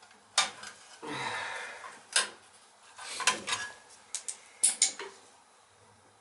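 Sharp metallic clicks and clinks, with short scraping and rustling in between, from hand tools and small metal parts being handled while working on a boiler control; a quick cluster of clicks comes about four to five seconds in.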